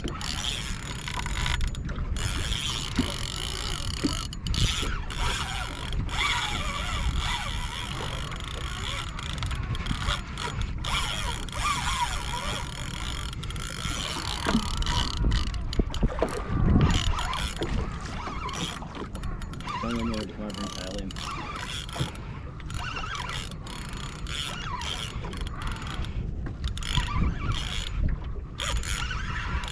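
Fishing reel clicking and ratcheting as a hooked shark is played and wound in, a dense run of small mechanical clicks over a steady low rumble of wind and water around the boat.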